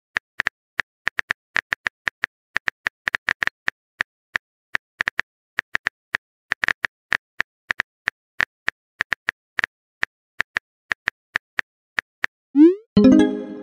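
Phone keyboard typing sound effect: quick, irregular taps, a few per second, while a text message is being typed.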